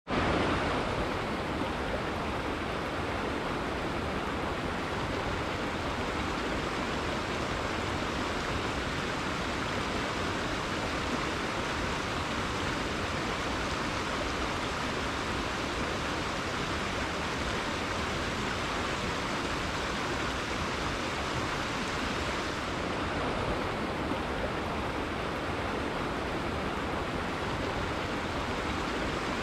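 River water flowing steadily, a continuous even rushing with no breaks.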